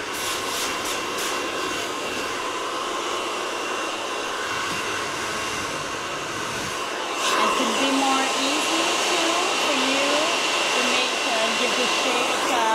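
Hand-held hair dryer blowing steadily, getting louder about seven seconds in.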